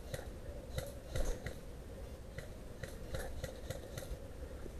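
Airsoft guns firing single shots: about a dozen faint, sharp cracks at uneven spacing, with a quicker run of them in the second half.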